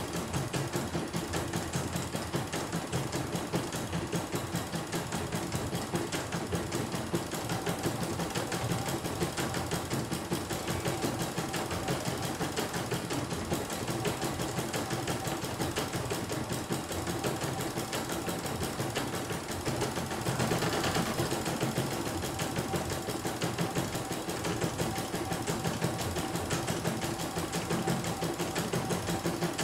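CNY E900 computerized embroidery machine stitching a design, its needle running in a rapid, even rattle as the hoop moves the fabric. A short louder stretch comes about twenty seconds in.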